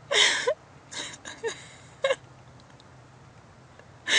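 Cat hiccuping: a string of short, sharp hic sounds at uneven spacing, about five in the first two seconds and one more near the end.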